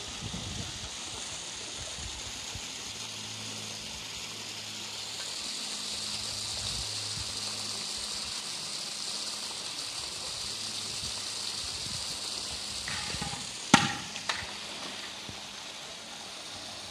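Steady rush of water in a polar bear's pool enclosure over a low hum. Near the end a single sharp knock, followed by a smaller one half a second later.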